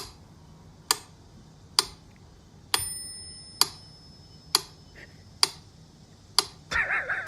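Sharp, evenly spaced ticks, a little more than one a second; one of them rings on briefly with a thin bell-like tone. Near the end a wavering, warbling sound comes in.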